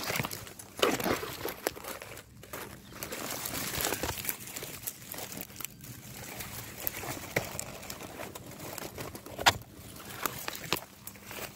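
Dry leaf litter and dead stems rustling and crackling close by as a hand pushes through them, in irregular crackles with one sharper crack about nine and a half seconds in.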